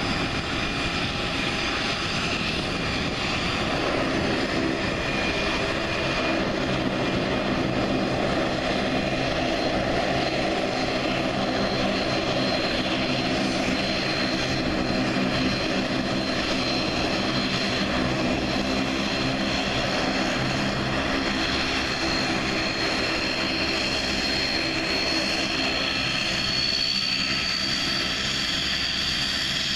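Airbus A320neo's turbofan engines running steadily at low power, a low hum under a high whine. The whine rises a little in pitch near the end.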